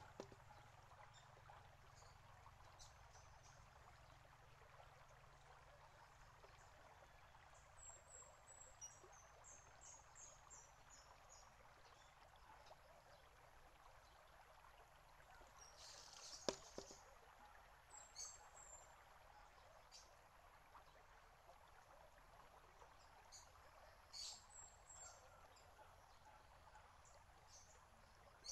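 A bamboo shishi-odoshi: a thin trickle of water runs from the bamboo spout into the rocker tube, and a little past halfway through the tube knocks once, sharply, against the stone as it falls back after emptying. Small birds chirp in short high runs.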